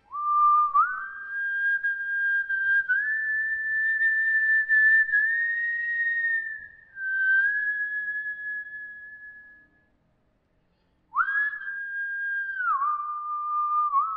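Solo melody in a single pure, whistle-like tone, sliding up and down between long held notes with nothing under it. It breaks off for about a second two-thirds of the way in, then comes back on a high note and slides down.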